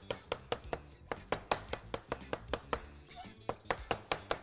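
Meat cleaver chopping peeled raw shrimp on a plastic cutting board, mincing it coarsely in rapid, even strokes of about six a second, with a brief pause about three seconds in.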